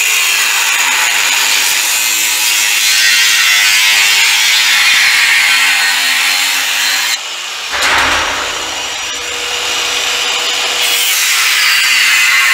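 Power saw cutting through a steel pallet-rack upright. The cutting noise is steady, with a brief break a little past halfway.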